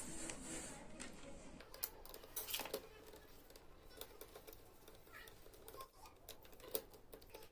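Faint scattered clicks and taps of a screwdriver and plastic parts as the casing of a power strip's USB charging module is taken apart.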